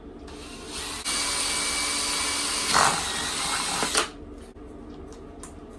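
Power drill boring a hole for a light's wire, running steadily for about four seconds, with two brief louder surges in its last second or so before it stops.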